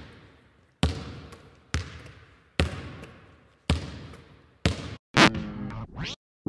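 A basketball dribbled slowly on a hard gym floor, about one bounce a second, each bounce echoing off the walls. About five seconds in, a short pitched sound follows the last bounce.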